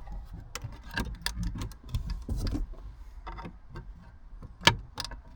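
Hard plastic interior car trim being handled and worked loose, giving scattered light clicks and knocks from its clips and tabs, with one sharper knock near the end.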